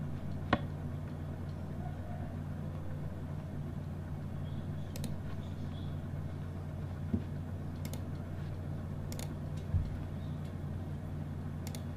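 Steady low electrical hum with a handful of sharp computer mouse clicks scattered through it, the strongest about half a second in.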